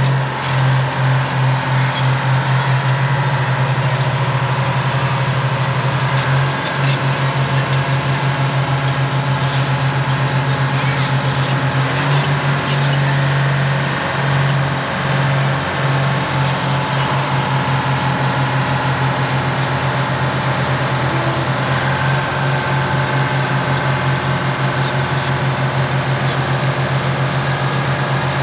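Twin GM Detroit Diesel 6-71 two-stroke inline-six diesel engines of a Euclid TC-12 crawler dozer running as the machine travels and works, a steady, rapidly pulsing drone.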